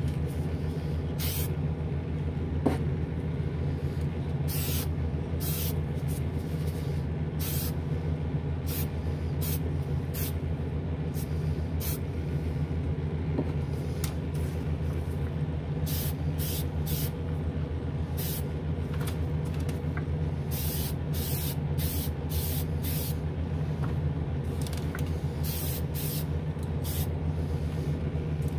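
Aerosol can of Testors Extreme Lacquer spraying in many short hissing bursts, grouped in runs, as a coat of lacquer is dusted onto a model car body in light passes. Beneath it runs the steady low hum of the spray booth's exhaust fan.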